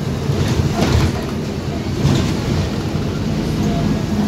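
Scania OmniCity double-decker bus under way: its five-cylinder diesel engine giving a steady low drone, mixed with road and body noise heard inside the upper deck, with brief louder swells about one and two seconds in.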